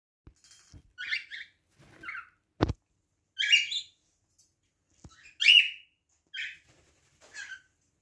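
Cockatiel giving a series of about six short chirping calls, spaced a second or so apart, with one sharp tap about two and a half seconds in.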